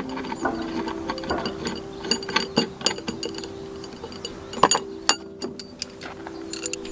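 Light, irregular clicks and taps of a mosquito coil being handled and fitted onto the metal pin of a wooden coil holder on a wooden table, with a few sharper clicks about four and a half seconds in and again near the end. A steady low hum runs underneath.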